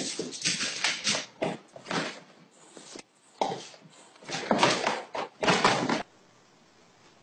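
A cat and a dog scuffling: a run of irregular, short, noisy bursts that stop suddenly about six seconds in.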